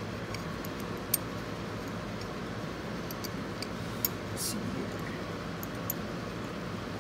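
Scattered small clicks and light metal ticks from a C-clamp being handled and screwed tight onto a lure mold, with the sharpest click about a second in and another about four seconds in, followed by a brief hiss. A steady hum runs underneath.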